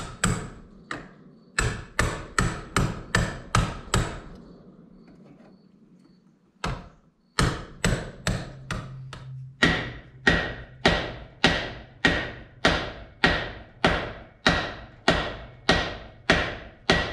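Hammer tapping on the slotted end of a stainless steel exhaust pipe to flare it out, sharp ringing metallic strikes about two a second in runs, with a pause of a couple of seconds near the middle.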